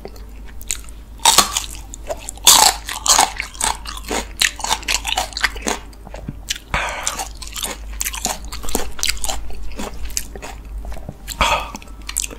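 Crisp biting and chewing of a raw green cheongyang chili pepper: a few loud crunchy bites in the first three seconds, then steady crunching as it is chewed.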